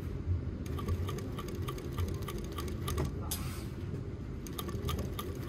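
Sewing machine stitching slowly through denim: its needle clicks evenly several times a second over a low motor hum, with a brief hiss about three seconds in.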